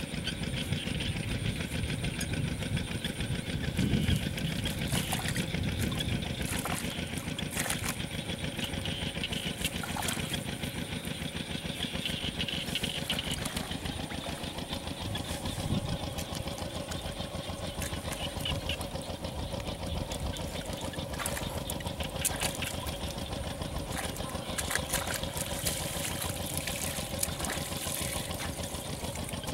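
A small engine running steadily in the background, with scattered sharp clicks.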